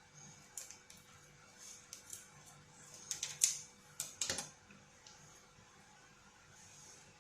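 Scattered light clicks and short plastic-like rustles of hands working packets and utensils, the busiest and loudest stretch about three to four and a half seconds in: the sauce sachets being opened and emptied onto drained instant noodles.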